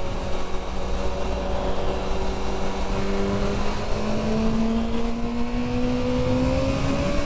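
Honda CB650R's inline-four engine through an IXIL Hyperlow XL aftermarket exhaust, pulling steadily in one gear, its note slowly rising from about halfway through, over a low rush of riding wind.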